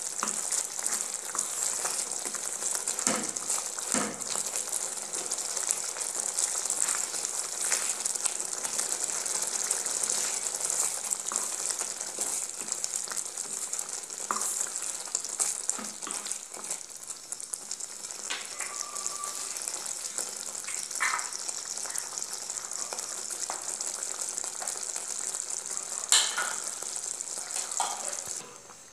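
Tomato pizza sauce sizzling steadily in a nonstick pan as it cooks down, with a wooden spatula scraping and knocking against the pan now and then as it is stirred.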